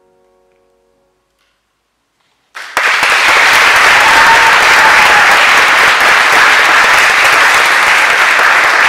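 The last saxophone notes die away, and after a short silence the audience starts applauding about two and a half seconds in. The loud, steady clapping carries on.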